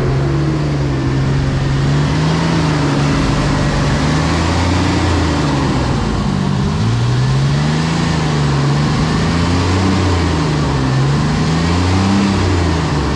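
1998 Chevy Express van's 4.3-litre V6 engine running near idle, its speed rising and falling unevenly over a second or two at a time. It has been started after sitting a long time, with the newly replaced alternator now charging at 14 volts.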